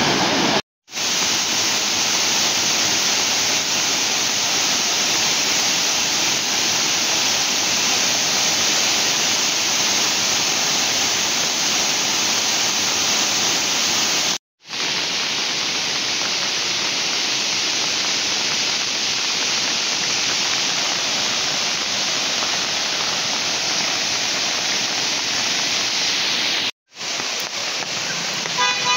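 Muddy floodwater of a rain-swollen river and waterfall rushing, a loud, even noise. It cuts out briefly three times, where the footage changes shot.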